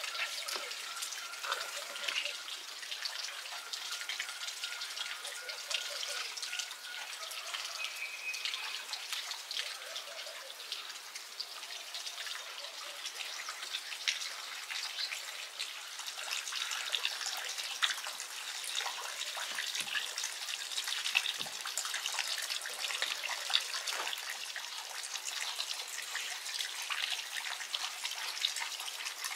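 Hands mixing and kneading wet, sticky bread dough in an enamel basin as water is worked into the flour: a steady run of small wet clicks and squelches.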